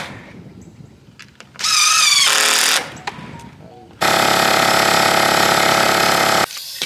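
Bostitch pancake air compressor's motor running steadily for about two and a half seconds, then cutting off. Earlier, about a second and a half in, there is a brief high, wavering sound.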